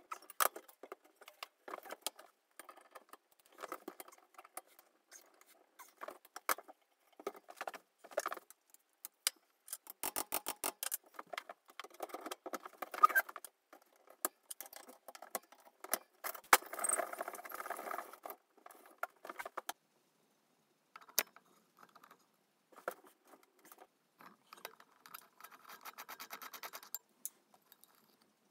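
Metal hand tools clinking, knocking and scraping on the parts of a Faema Faemina lever espresso group as it is taken apart. Three runs of rapid clicking come about ten seconds in, past the middle and near the end.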